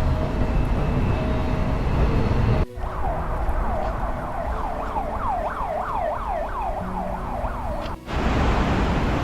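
Outdoor traffic noise, then after a sudden cut about two and a half seconds in, a siren rapidly sweeping up and down in pitch, two or three sweeps a second, for about five seconds. It cuts off abruptly and the traffic noise returns.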